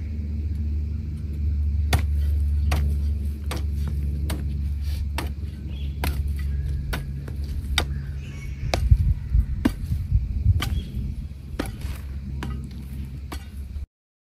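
Rhythmic sharp chopping strikes, about one every second, over a heavy low rumble. The sound cuts off abruptly near the end.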